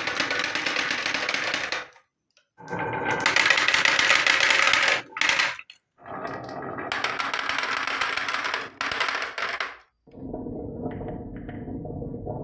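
Marbles rolling and clattering down a wooden marble-run track, a dense rattle of small knocks. The sound comes in stretches of a few seconds that cut off abruptly about two, six and ten seconds in.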